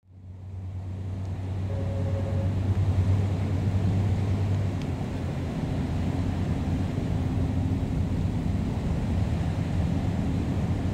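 Steady low engine drone of a passenger ferry under way, fading in over the first second.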